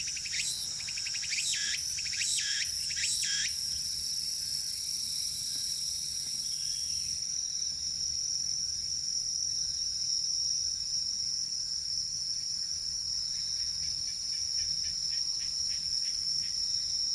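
Crickets and other insects trilling in a steady, high, unbroken tone. For about the first three seconds a second caller overlays it with a run of quick, sharp chirps, and faint rapid ticking comes in near the end.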